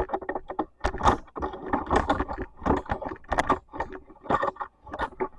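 Hand-handling noise as something is rolled up: irregular rustling and crinkling with many small clicks, in quick uneven bursts.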